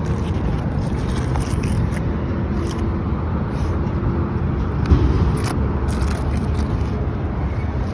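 Asphalt roof shingles being lifted and handled in a repairability test: small scrapes and crackles, with a louder thump about five seconds in, over a steady low rumble.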